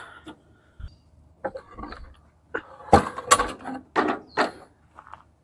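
Irregular clunks and rattles of metal tools and mower parts being handled, with a few sharper knocks about three and four seconds in.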